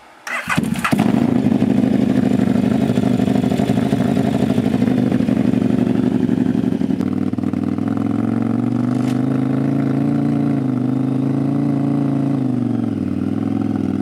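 KTM LC8 V-twin motorcycle engine cranking and firing about half a second in, then running steadily near idle. Its pitch rises a little and falls again, dipping near the end.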